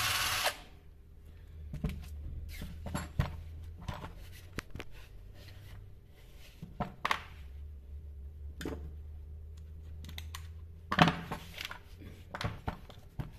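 A power tool whirs briefly at the start, then cuts off. After that, chainsaw parts and tools are handled on a workbench with scattered clicks, taps and knocks, and the loudest knock and scrape come about eleven seconds in.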